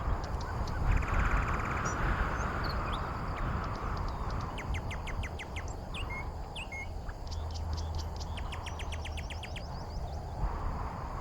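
Small birds chirping, with several fast trills of quickly repeated notes in the middle of the stretch, over a steady outdoor background hiss and low rumble.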